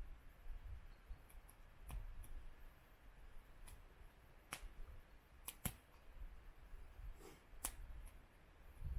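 Faint, irregular sharp clicks, about half a dozen, two of them in quick succession a little past the middle, over a low rumble.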